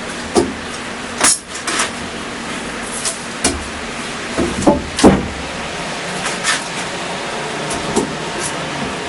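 Angle grinder with a coarse 36-grit sanding disc running steadily, with a string of short louder rasps as the disc is pressed into the wood, the loudest about five seconds in.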